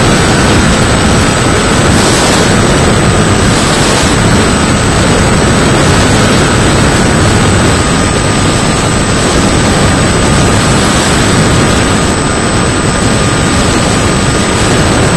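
Electric RC plane in flight, heard from a camera taped to its airframe: its Turnigy 480 brushless motor and propeller run steadily under a loud, even rush of wind and airframe noise, with a thin steady whine through it.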